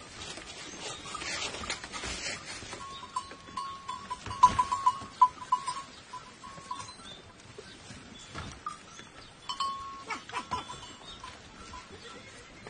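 Goats crowding out through a pen doorway, with a small metal bell clinking in two runs: one from about three seconds in, and another near ten seconds.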